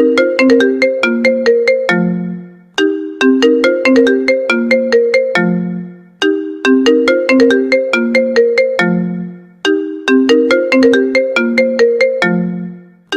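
A phone ringtone: a short melody of quickly fading, bell-like notes that loops about every three and a half seconds, with a lower sustained note closing each loop.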